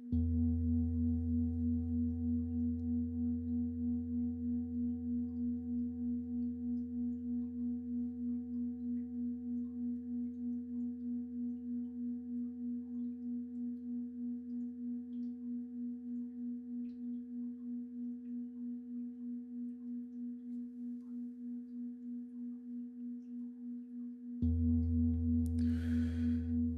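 A large deep pelvic singing bowl (Beckenschale) is struck once. It rings with a low pulsing hum that fades slowly and is struck again about 24 seconds in.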